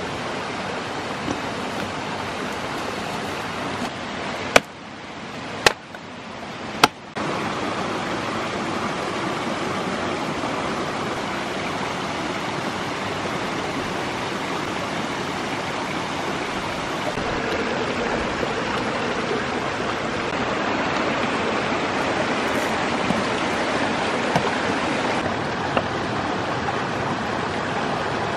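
A mountain stream rushing steadily over rocks. About five seconds in, three sharp chopping strikes, roughly a second apart and the loudest sounds, as firewood is split.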